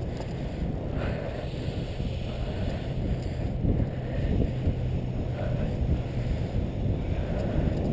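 Steady low wind rumble buffeting a handlebar-mounted GoPro's microphone as the bicycle rolls along a paved path.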